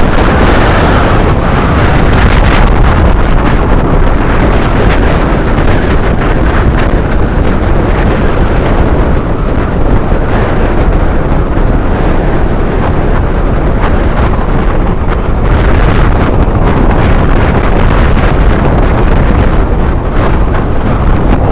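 Loud, continuous surf of large waves breaking on a sea beach, with strong wind buffeting the microphone.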